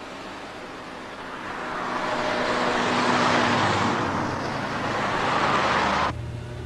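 Car driving past, a rushing road noise that swells, holds, and then cuts off abruptly about six seconds in, leaving a low steady hum.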